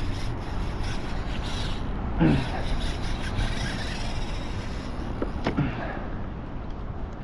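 Steady wind and water noise on an outdoor microphone, with two short grunt-like vocal sounds, about two seconds in and again near five and a half seconds.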